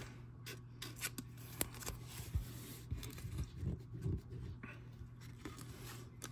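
Glossy hockey trading cards sliding and flicking against each other as they are sorted through by hand: faint rubbing with scattered light ticks, over a low steady hum.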